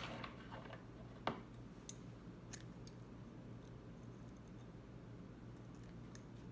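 A few faint clicks and ticks from tools and materials being handled at a fly-tying vise, the sharpest one at the start and another about a second later, over a steady low hum.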